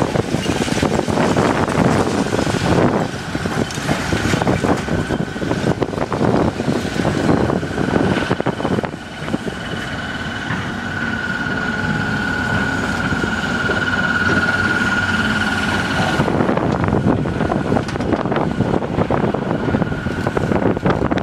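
Tracked demolition excavator at work: its engine and hydraulics running, with repeated knocks and crashes of brick rubble and timber as the bucket pulls the building down, and wind buffeting a phone microphone. For several seconds in the middle the knocking gives way to a steadier sound with a high steady whine, then the crashing resumes.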